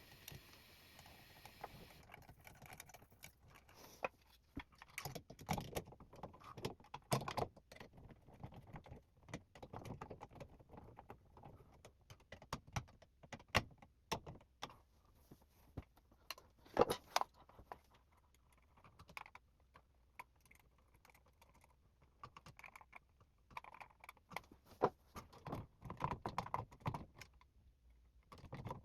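Hands mounting a Simplex fire-alarm strobe onto its adapter plate: scattered small clicks, clinks and rustles of hardware and plastic being handled, with a quieter pause a little past the middle.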